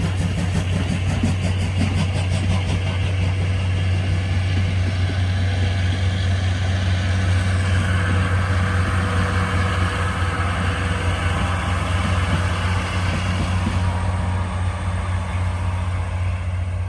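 A vehicle engine running steadily with a deep, even hum.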